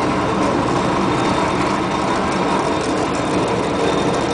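River car ferry's diesel engine running steadily as the boat comes alongside the landing to dock.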